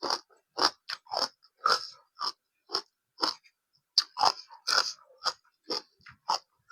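Close-up wet, crunchy chewing of blanched water spinach (morning glory) with a spicy salad, in a steady rhythm of about two bites a second.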